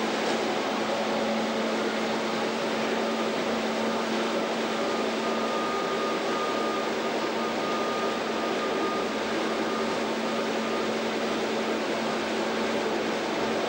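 Brill Model 75 diesel railcar running along the track, heard from inside the driver's cab: a steady engine drone and wheel-on-rail running noise, with a faint high whine for several seconds in the middle.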